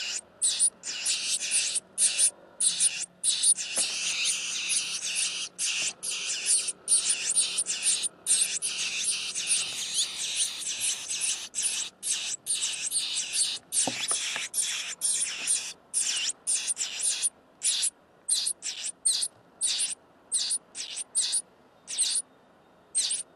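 Nestlings begging for food with shrill, high-pitched calls. The calls run together in a near-continuous chorus through the middle, then thin out to separate short calls near the end.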